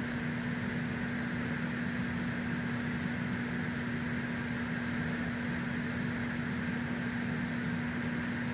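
Steady mechanical hum with a single constant low tone and an even hiss behind it, unchanging throughout.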